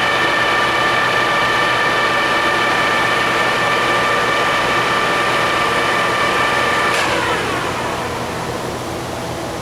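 Clausing 17-inch engine lathe running under power with a steady whine from its spindle and gearhead. About seven seconds in there is a sharp click, and the whine then falls away as the spindle coasts down.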